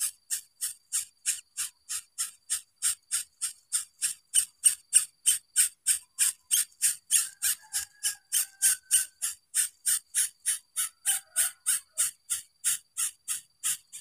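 An insect chirping in a steady rhythm, about three shrill pulses a second, over a faint continuous high whine.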